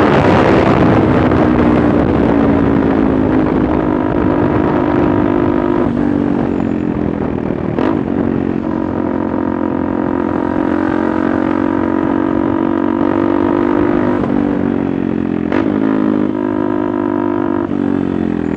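KTM Duke 390's single-cylinder engine running through an aftermarket Akrapovic-replica exhaust, the revs falling at first and then holding steady, with a few brief dips in pitch and two sharp clicks.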